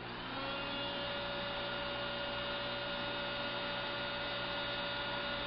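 Heat gun switched on, its fan motor spinning up within a fraction of a second into a steady hum with a high whine, heating double-sided heat-shrink tubing.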